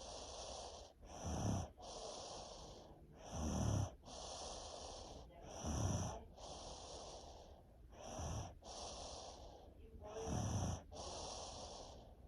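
Snoring, congested by a head cold and strep throat: five loud, deep snoring breaths about every two and a quarter seconds, each followed by a softer, hissing breath.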